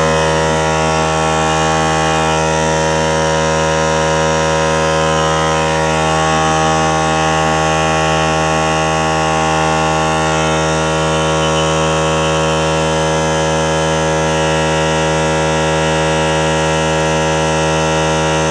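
A small portable electric air compressor running steadily with a constant hum, pumping up its tank.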